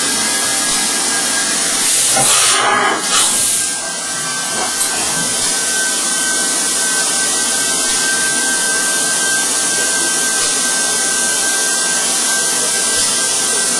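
Fanuc Robodrill CNC milling machine running through a drilling cycle: a steady hiss with a thin, high steady whine that grows stronger about three and a half seconds in, after a brief louder surge.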